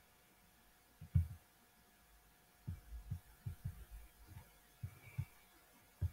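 Quiet room tone with a faint steady hum, broken by a dozen or so short, soft low thumps at uneven intervals, the loudest about a second in and several close together between about three and four seconds.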